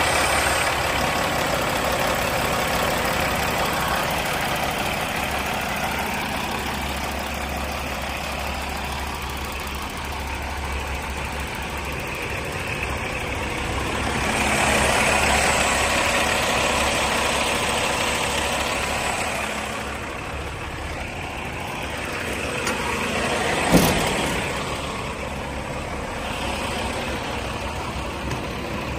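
Kenworth T800 semi-truck's diesel engine idling steadily, louder for a few seconds midway. A single sharp knock comes about four-fifths of the way through.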